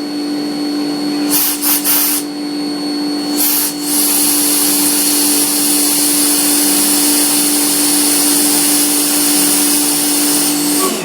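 CNC mill spindle running with a steady hum while a ball-end tool mills decorative dots into a titanium pen body tube. A high hiss comes in short bursts, then holds steady from about four seconds in, and the hum and hiss both stop just before the end.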